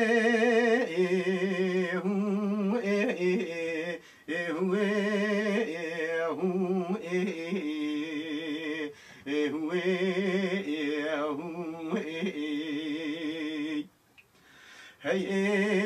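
A man singing Kurdish dengbêj song with no instruments: long drawn-out vowels held with heavy wavering ornament, broken by short breaths and a longer pause near the end before the next line.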